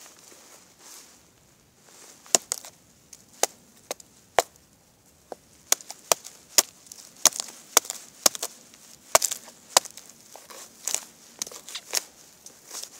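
Wood being chopped: about fifteen sharp, irregular strikes, after a quieter first two seconds.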